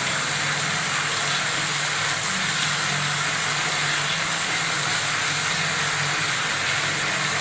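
Water running steadily from a tap, a constant splashing rush.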